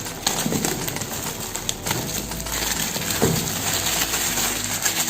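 Plastic shrink-wrap crinkling and tearing as it is pulled off a smartphone box, a dense crackle of small clicks.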